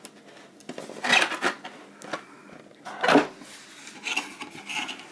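Cardboard packaging rubbing and scraping as a box is opened and its inner carton shifts, in several short rustling bursts, the loudest about a second in and about three seconds in.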